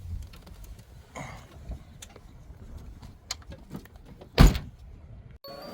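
Scattered clicks and rustling, then one loud thump about four and a half seconds in: a vehicle door being shut.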